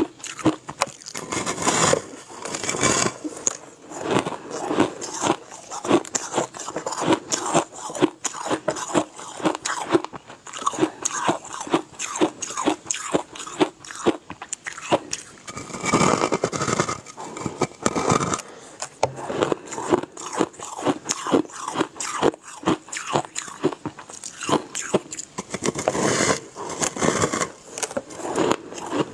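Biting and chewing a large block of white ice: continuous crackly crunching, many crunches a second, with bites following one another without pause.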